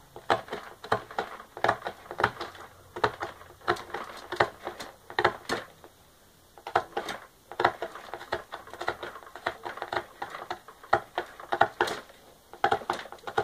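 Ballpoint pen poking holes through a cardboard shoebox lid, a quick irregular run of sharp pops and taps as the tip punches through, with a short pause about six seconds in.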